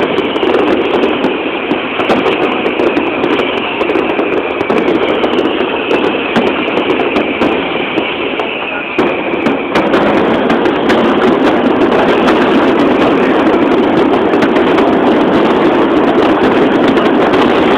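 Fireworks display: aerial shells bursting in a dense run of bangs and crackling, growing thicker and steadier about ten seconds in as the bursts pile up.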